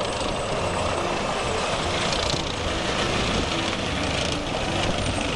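Continuous scrubbing and rubbing on a muddy plastic toy tank as it is washed clean.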